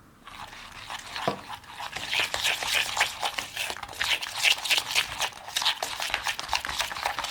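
A kitchen utensil working the ingredients in a rapid run of clicks, crunches and scrapes, with one firmer knock about a second in.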